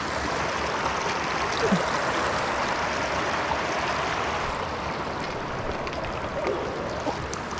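Stream water rushing steadily over and between rocks.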